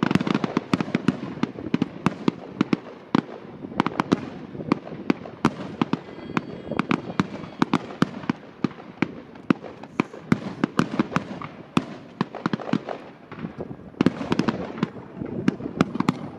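Fireworks display: a dense, continuous barrage of sharp bangs and crackles, several a second, over a low rumble of echoing blasts.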